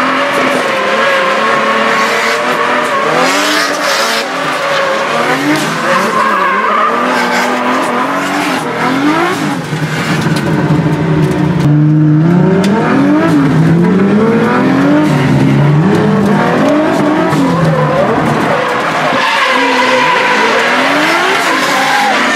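Drift car's engine heard from inside the cabin, revving hard with rapid rises and falls, with tyre squeal over it. About halfway through the engine settles low, then is blipped up and down repeatedly. Near the end it is back on hard throttle with the tyres squealing again.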